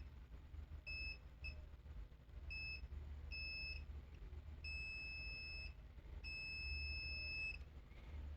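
Multimeter beeper sounding in a string of short and longer beeps, about seven in all, as the probes touch points on a laptop motherboard: the beep marks a short to ground on the power rail. A faint low hum runs underneath.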